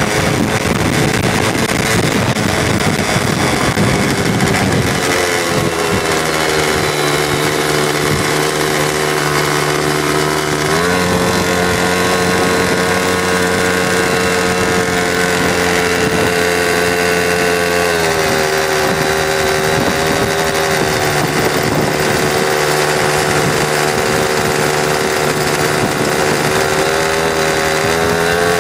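X-1 pocket bike's small two-stroke engine running steadily while riding. Its pitch steps up about a third of the way through and drops back again a little past the middle.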